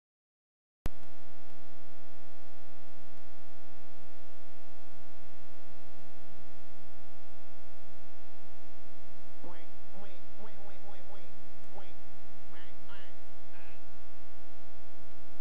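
Steady electrical hum with many overtones that starts abruptly about a second in. Faint short pitched sounds come and go over it in the second half.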